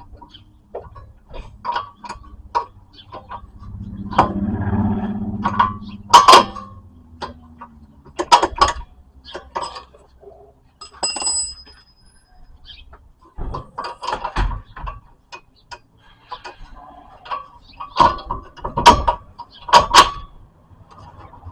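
Irregular metal knocks, clanks and clinks as a front strut assembly is handled and fitted into a car's front suspension. One clink near the middle rings briefly.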